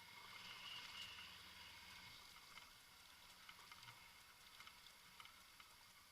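Near silence: a faint steady hiss with a faint low hum and scattered faint ticks.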